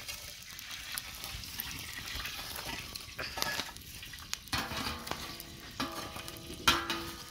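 Wood fire crackling and sizzling around a metal tin of cooking chicken, full of sharp pops, with scraping and knocking as burning embers are pushed away from the tin. A steady tone joins about four and a half seconds in.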